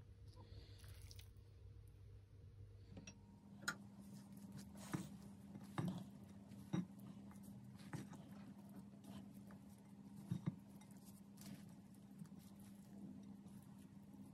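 Wooden spatula stirring bulgur salad in a glass bowl: soft, wet mixing with scattered sharp knocks of the spatula against the glass. Diced tomatoes slide out of a small glass bowl at the start.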